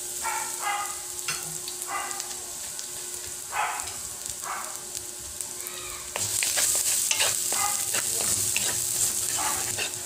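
Minced garlic sizzling in a little hot oil in a large wok while a spatula stirs it, scraping against the pan with short squeals and small knocks. The sizzle gets louder about six seconds in.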